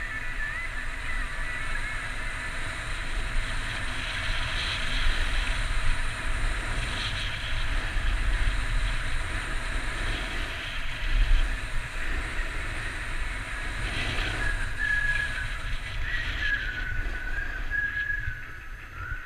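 Wind rumbling on an action camera's microphone and skis hissing over packed snow during a fast downhill run, easing off as the skier slows near the end. A thin, wavering whistle-like tone comes in at the start and again for the last few seconds.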